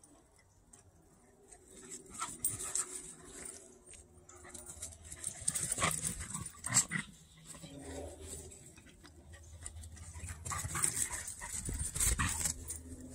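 Dogs vocalizing in short, irregular bursts as they play-chase each other on grass, starting about two seconds in.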